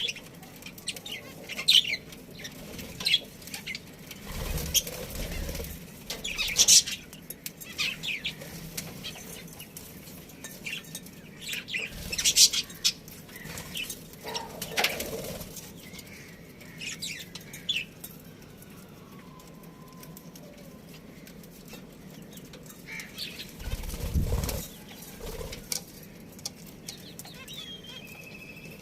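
Budgerigars chirping in short, high, scattered calls, with a few fluttering wingbeats or thumps in the cage.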